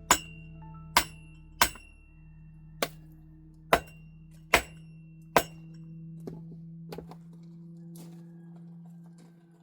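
A series of sharp, ringing clinks or knocks, roughly one a second, seven loud ones and then two fainter ones, over quiet background music.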